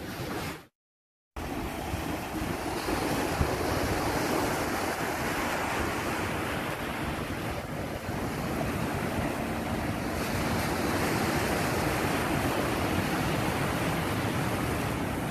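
Ocean surf breaking and washing up a sandy beach, a steady rush of water, with wind buffeting the microphone. The sound drops out briefly about a second in, then runs on steadily.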